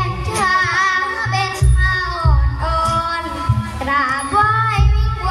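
A child singing a likay song through the stage sound system over amplified backing music with a heavy bass beat.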